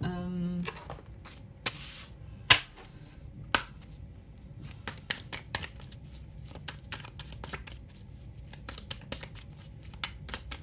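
A deck of cards handled and shuffled by hand: a long run of quick card clicks and flicks, with a short rustle and two sharper snaps in the first few seconds.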